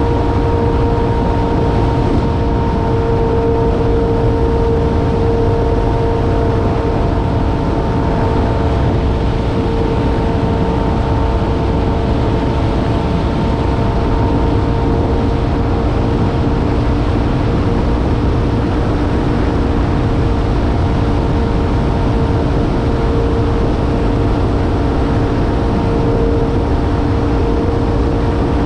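Jet ski engine running at a steady speed, a held even note over a heavy rushing rumble.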